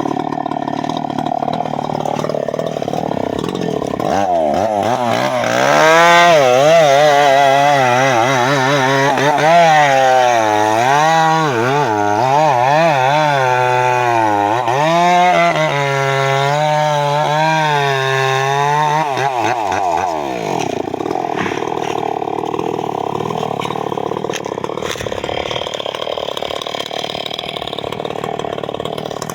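Two-stroke chainsaw running at high revs for about sixteen seconds, its pitch wavering up and down as it cuts into teak, then dropping back to a lower, rougher run.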